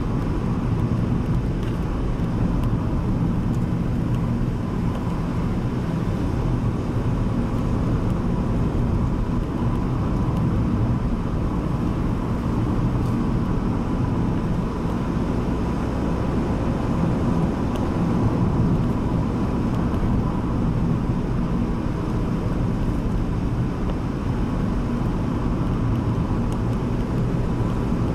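Steady engine and road noise heard from inside a moving car's cabin: a low, even rumble with a faint steady hum above it.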